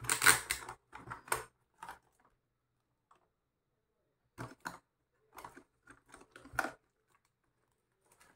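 Hard plastic tool case being handled and opened: clicks and knocks of the plastic shell, two sharp snaps about four and a half seconds in as its plastic latches are released, then more clattering and rustling as the lid is lifted.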